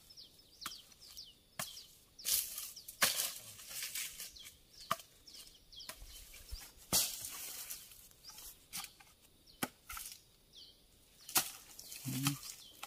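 Machete chopping at a felled coconut palm's fruit bunch: a string of sharp, irregular strikes about a second apart. Faint bird chirps sound between them.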